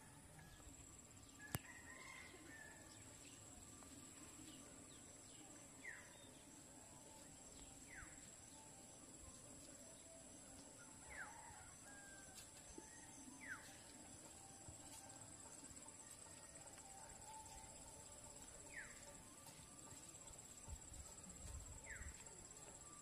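Quiet countryside ambience: a steady high insect drone, with a bird giving a short falling whistle every few seconds, about six times, and one sharp click near the start.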